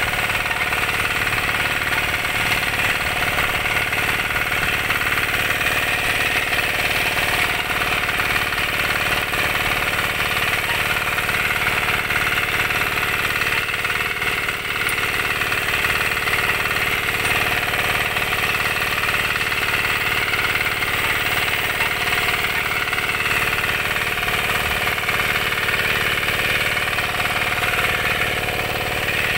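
Small engine of a walk-behind power tiller running steadily as it cultivates between crop rows.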